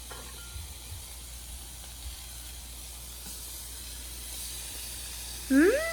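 Steady, even hiss, then a person's drawn-out rising-and-falling exclamation near the end.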